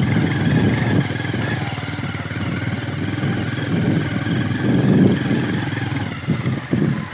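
A motor vehicle's engine running as it drives along, briefly louder about five seconds in, with a couple of short thumps near the end.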